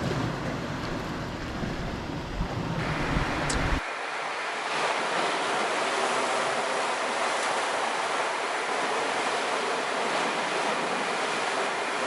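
Sea surf washing against a rocky shore, a steady hiss of waves. For the first few seconds wind buffets the microphone with a low rumble, which cuts off abruptly about four seconds in, leaving the even wash of the surf.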